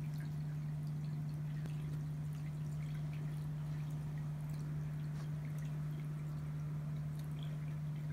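A steady low hum at a constant pitch, with faint scattered ticks and light rustles over it.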